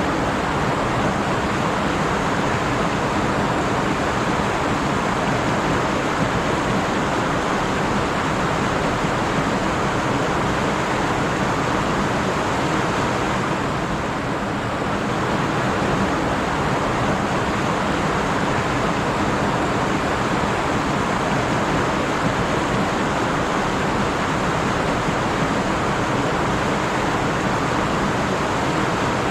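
Stream water flowing and rushing over rocks: a steady, even rushing sound.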